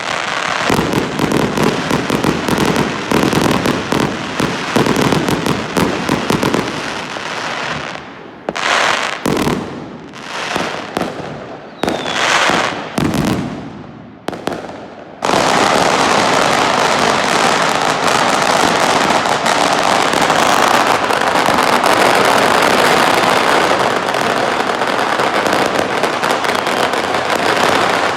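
New Year fireworks and firecrackers crackling and popping in a dense stream. About eight seconds in, it breaks into separate bursts with short gaps. A little past halfway it suddenly resumes as a steady, unbroken crackle.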